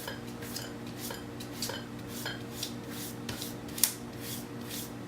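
A cat scratching with its paws at a refrigerator in the instinctive motion of burying its food: a run of light scrapes and taps about three a second, one sharper tap about four seconds in, over a steady low hum.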